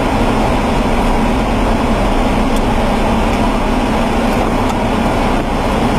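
A car driving along at road speed, heard from inside the cabin: steady engine hum and tyre and road noise.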